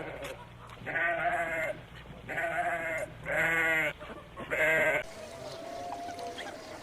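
Sheep bleating four times in quick succession. About five seconds in it cuts off abruptly to a faint background with a thin wavering call.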